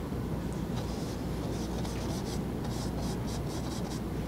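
Paintbrush working oil paint onto a canvas: short, faint strokes that come irregularly.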